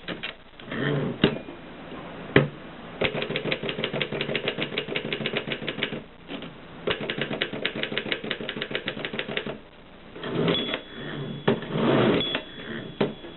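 Mercedes 6 typewriter being typed on in two quick runs of keystrokes, about ten clacks a second. Between the runs and near the end come rougher, sliding mechanical sounds with a thin high ring.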